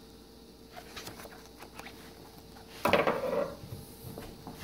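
Handling noise as a paper motherboard user-guide booklet is moved about and put down on a wooden table: faint rubs and small clicks, with one louder rustle and knock about three seconds in.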